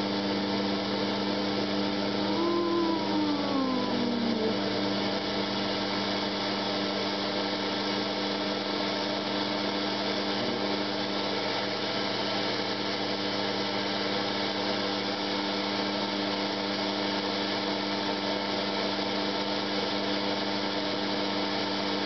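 FM radio static from a Panasonic portable boombox tuned to an empty frequency between stations: a steady hiss with a faint hum underneath. A faint tone glides down in pitch about two to four seconds in.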